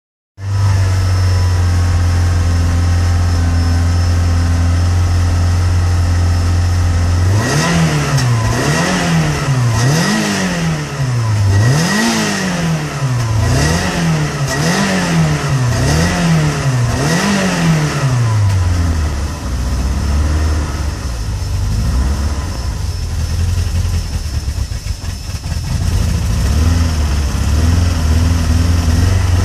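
Peugeot 106 GTi's 1.6-litre 16-valve four-cylinder engine idling steadily, then revved in about eight quick blips, each rising and falling, before dropping back to an idle that runs unevenly with dips in level and then steadies near the end. It shows the cold-engine misfire that the owner reports, in which the engine stumbles and can cut out unless the revs are kept up.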